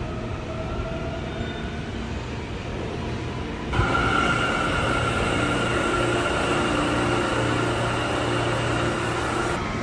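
New York City subway train moving along an underground platform: a low rumble at first, then, about a third of the way in, a sudden jump to a louder run of wheels and rails with a steady high motor whine on top.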